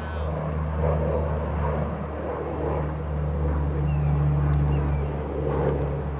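An engine running steadily with a low, even hum, with a couple of short sharp clicks near the end.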